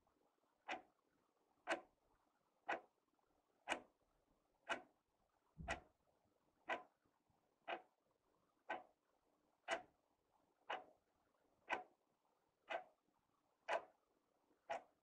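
Wall clock ticking steadily, one sharp tick each second.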